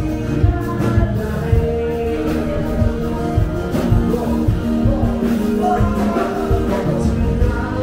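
Music with singing over a steady drum beat.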